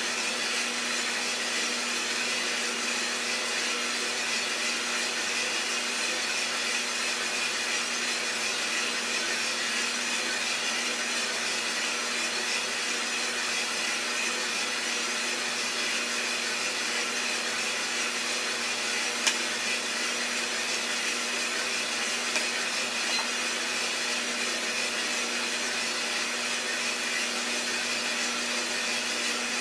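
Coffee roaster running steadily: even fan and motor noise with a low hum, and two sharp clicks about two-thirds of the way through.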